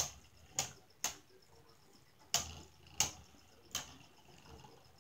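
Two Beyblade Burst spinning tops whirring faintly in a plastic stadium and clacking sharply as they collide, six clacks at uneven intervals.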